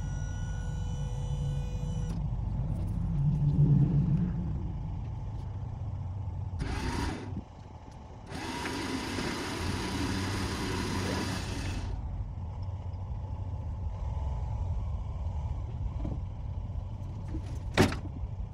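An engine runs steadily as a car is brought down the deck of a tilt car trailer and off onto the ground. A short burst of rough noise comes near the middle, then about four seconds of louder rough noise, and a single sharp knock near the end.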